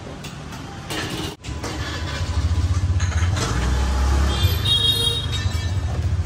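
Low rumble of street traffic, motorbikes and other vehicles running close by, growing louder about two seconds in, with a few light clinks in the first second and a brief high ringing tone near the end.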